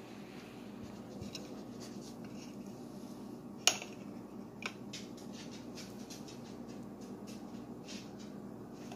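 Table knife scraping and tapping: light scratching as it works through crumbly cornbread and cuts into butter, with one sharp click about three and a half seconds in as the blade strikes the butter dish, and a smaller click just after.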